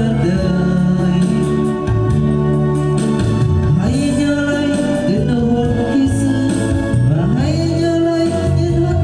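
A Vietnamese song sung over a karaoke backing track, with a single melodic vocal line gliding between notes over steady band accompaniment.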